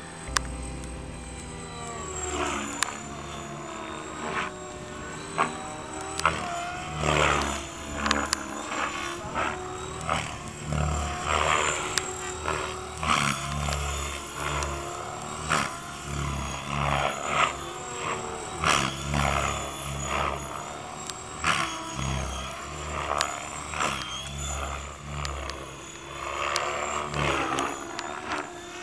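Didgeridoo music: a didgeridoo drone with sliding tones over pulsing low bass notes and sharp accents.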